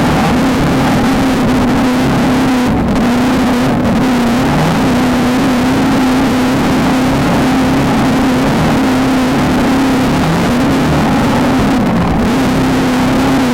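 Beetle-based desert race car's engine running hard at high, fairly steady revs, its pitch dipping briefly a few times, over a constant rushing noise.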